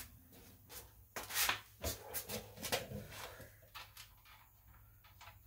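Irregular light clicks and knocks of metal hardware and tools being handled during reassembly of the ATV's swing arm, about ten short strikes spread unevenly, busiest in the first three seconds.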